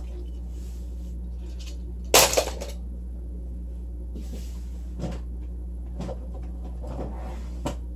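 A loud clatter of knocks about two seconds in, then a few single softer knocks, over a steady low hum.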